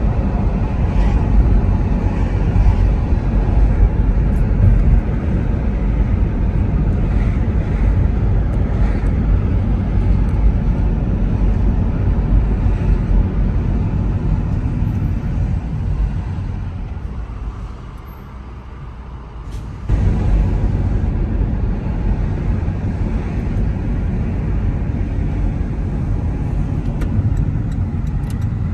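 A car driving, heard from inside the cabin: a steady low rumble of road and engine noise. It fades as the car slows about sixteen seconds in, then comes back abruptly about twenty seconds in.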